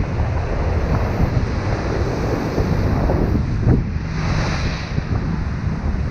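Wind buffeting the microphone over the steady wash of ocean surf breaking on the beach, with a brief brighter hiss about four seconds in.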